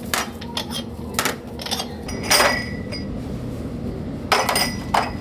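Small ceramic side-dish bowls clinking as they are set down on trays and the loaded trays are stacked: a string of sharp clinks, the loudest a little over two seconds in with a short ring.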